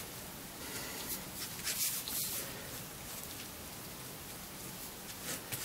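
Quiet, soft scraping of a spatula spreading Tokonole burnishing gum across the fuzzy flesh side of a piece of vegetable-tanned leather.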